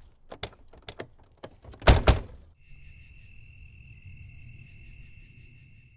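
Sound-effect footsteps, a few sharp taps, then a door thudding loudly about two seconds in. After it comes a steady high-pitched hum over a low rumble, fading out near the end.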